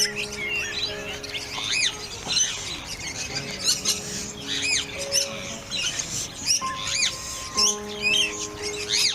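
Small birds chirping and squawking, many short sharp calls overlapping one another, over background music with long held notes.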